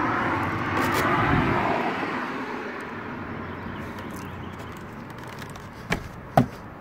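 A road vehicle driving past, its noise fading away over a few seconds. Two sharp clicks near the end.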